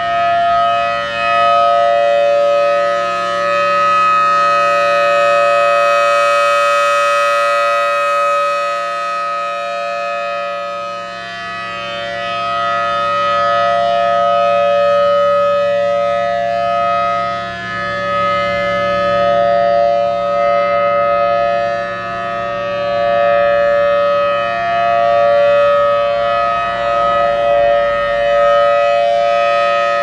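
Federal Signal Thunderbolt 1000T rotating outdoor warning siren sounding its steady full-alert tone. It is a held chord of a few pitches that swells and fades as the horn turns.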